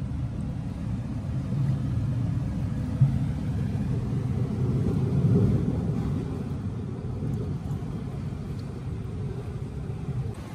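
Low, steady rumbling background of the rocky seashore at low tide, surf and moving air, swelling a little about five seconds in. One short sharp knock about three seconds in.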